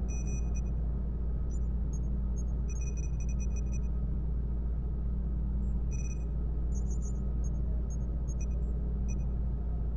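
Science-fiction space-dock ambience: a steady deep hum with scattered short, high electronic beeps and blips.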